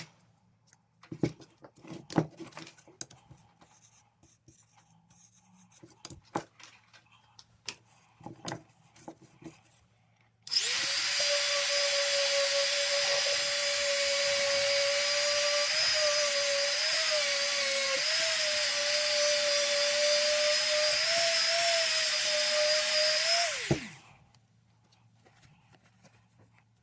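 Light handling clicks and taps, then a small high-speed electric power tool starts abruptly and runs steadily for about thirteen seconds, buffing the knife with rubbing compound. Its whine wavers slightly as it is pressed against the metal, then winds down with a falling pitch when switched off.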